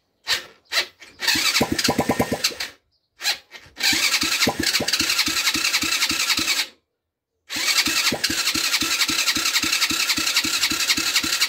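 Small ATV engine cranked on its electric starter: a couple of short taps, then three long cranking bursts of a few seconds each with an even chugging beat, turning over without catching. It only tries to start because the carburettor's throttle slide is jammed.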